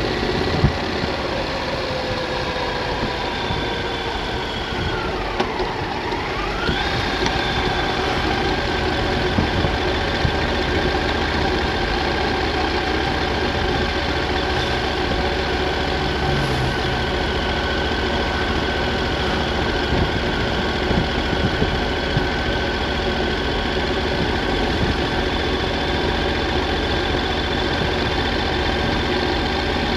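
Triumph Thunderbird motorcycle engine running steadily on the road. Its revs fall about five seconds in and rise again, then hold even.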